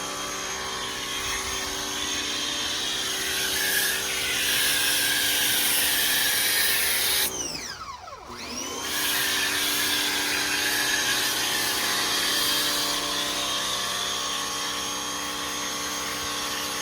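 Pressure washer spraying foam onto a car: a steady motor whine with a hiss of spray. About halfway through, the motor winds down and spins back up.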